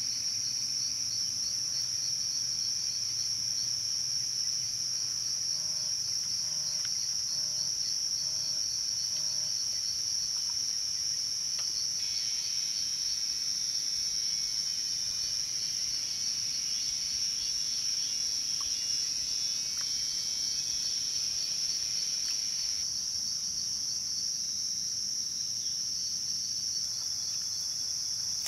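Forest insects chirring in a steady, high-pitched, unbroken chorus with a fast pulsing texture.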